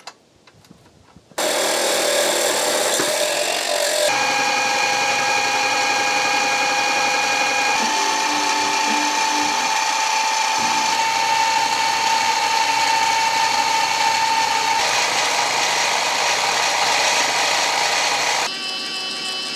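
Mini mill running an end mill along the edge of a steel bar to square it up: a steady motor and spindle whine over the grinding noise of the cut, starting about a second and a half in.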